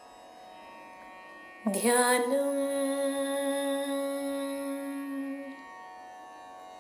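A woman's voice chants one long note, sliding up into it about two seconds in and holding it for about four seconds as it slowly fades, over a soft steady drone.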